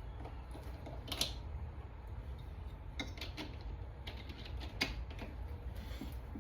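Scattered sharp metal clicks and taps from handling and tightening the baffles of a Q Erector 9 suppressor in clamp shells, the loudest about a second in and again about three quarters through, over a steady low hum.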